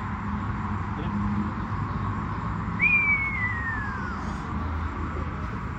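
A single whistle-like note about three seconds in, which jumps up sharply and then slides down in pitch over about a second and a half, over a steady background hum and low rumble.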